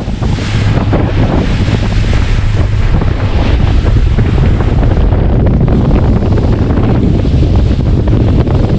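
Steady wind buffeting the microphone over rushing water and spray along the hull of a power catamaran running at speed.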